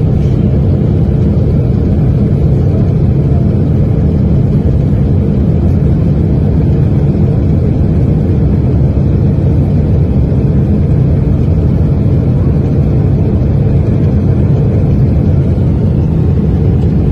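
Loud, steady low rumble heard inside the cabin of a Boeing 777 beside its failed Pratt & Whitney PW4000 engine, which is on fire after an in-flight failure with its cowling torn away, mixed with the rush of air past the fuselage.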